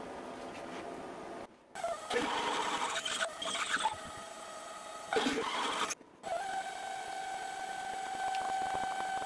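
Milling machine spindle running while a drill bit bores into a brass workpiece, with a rough, uneven cutting noise as the chips come off. After a sudden break about six seconds in, the spindle settles into a steady whine as an end mill cuts the brass.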